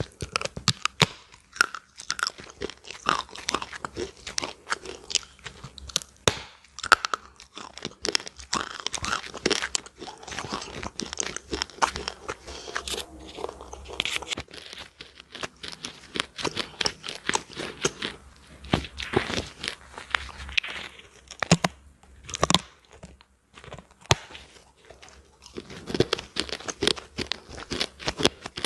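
Close-miked crunching and chewing: a hard, flaky slab is bitten into and chewed, with many sharp crackles in quick irregular succession.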